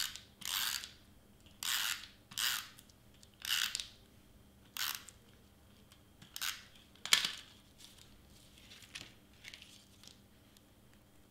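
Hand-held tape runner laying adhesive onto the backs of small cardstock pieces in a dozen or so quick short strokes, with fainter strokes and paper handling in the last few seconds.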